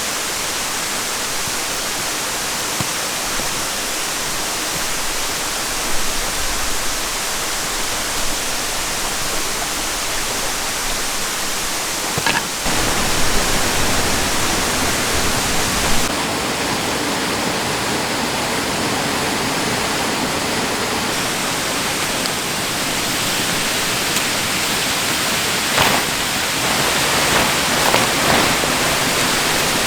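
A small stream running with a steady rushing of water, with a few light knocks.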